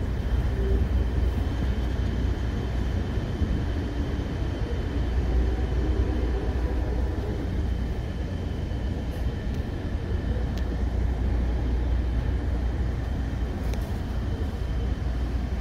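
Steady low rumble of an Amtrak Coast Starlight passenger car rolling into a station, heard from inside the car, with a faint steady high whine over it.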